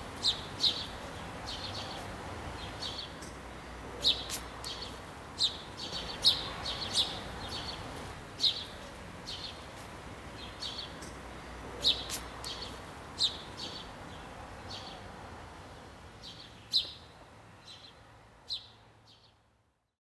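Small birds chirping outdoors: short, high chirps repeated irregularly every half second to a second over faint background noise, fading out near the end.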